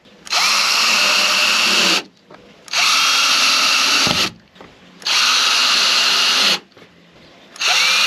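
Power drill driving screws into a plastic shed panel: three runs of about a second and a half each with short pauses between, and a fourth starting near the end.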